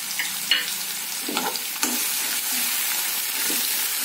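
Chopped onion and green chillies sizzling in hot oil and ghee in a kadai, with a metal spoon scraping and clinking against the pan several times as they are stirred.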